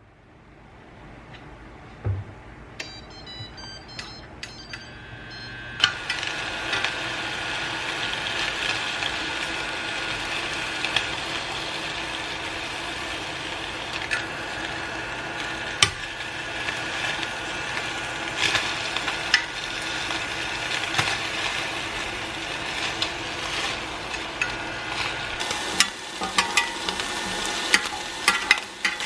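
Food frying in a pan: a steady sizzle that starts about six seconds in, with scattered sharp pops and the clatter of stirring.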